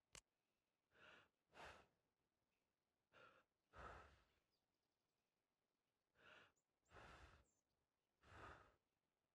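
Faint, breathy puffs of a cartoon character's breath blowing through a soap-bubble wand, mostly in pairs of a short puff then a longer one, about seven puffs in all.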